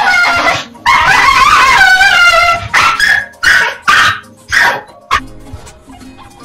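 Small black pug-like dog making a drawn-out, wavering howl-like whine for about a second and a half, then about five short loud barks, with background music underneath.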